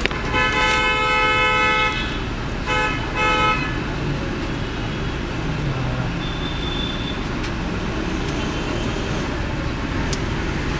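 A vehicle horn honks twice, a long honk of nearly two seconds and then a shorter one, over the steady low rumble of idling engines and traffic.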